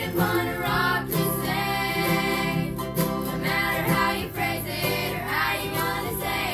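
A group of children singing a gospel song together, accompanied by strummed acoustic guitars and a mandolin.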